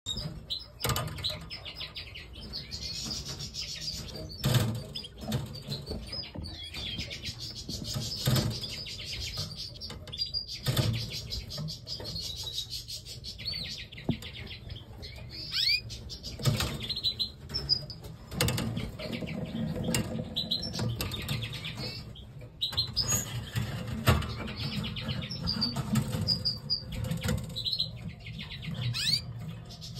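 Canaries chirping and twittering in fast trills, with bursts of wing flapping and sharp knocks scattered through.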